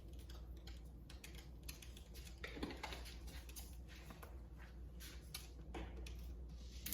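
Faint, irregular light clicks and taps of spice containers and a measuring spoon being handled while seasoning, over a low steady hum.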